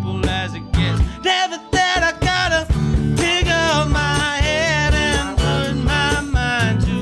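A live band with drums, bass guitar and keys playing an upbeat jazz-influenced groove, with melodic lines from the trombone and tenor saxophone on top. The bass and drums drop out for a moment just over a second in, then come back.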